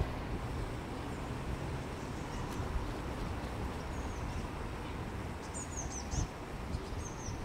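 Steady low rumble of a bicycle ride, wind and tyres on the road, with a small bird's short high chirps several times in the second half.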